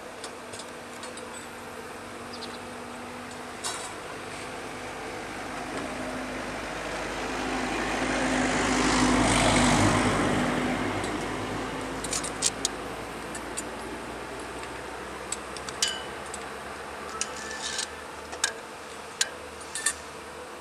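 A road vehicle passes, its sound swelling to a peak about nine seconds in and then fading away. It is followed by a scatter of sharp metallic clinks and taps.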